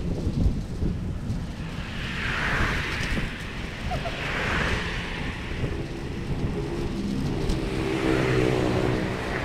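Wind rumbling on the microphone while riding along a road, with a rushing traffic hiss that swells three times as vehicles go by, and a low humming drone in the last few seconds.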